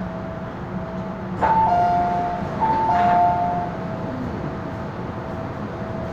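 Two-note chime inside an MTR M-Train car, a high note stepping down to a lower one, sounding twice in a row about a second and a half in, over the train's steady running rumble.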